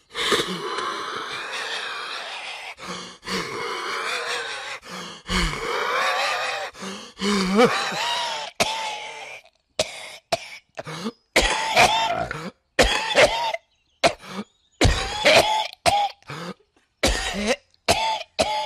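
A man's exaggerated comic coughing fit: a long, unbroken rasping, hacking cough for the first nine seconds or so, then a run of short, voiced coughs and hacks with brief gaps between them.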